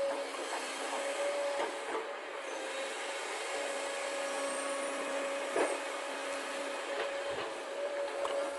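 A steady hum over an even hiss, with a few light scrapes and taps of a plastic toy excavator bucket scooping and pouring dirt.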